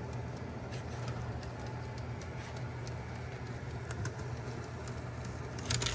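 Minitrix N scale model steam locomotive and freight cars running slowly on the track, with no sound decoder fitted, so only the mechanical running noise is heard: a steady low motor hum with occasional faint clicks, a few more close together near the end.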